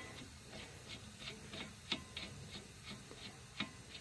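Faint, light metal clicks about three a second, two of them sharper, as the axle nut is worked back onto the hub's axle shaft by hand.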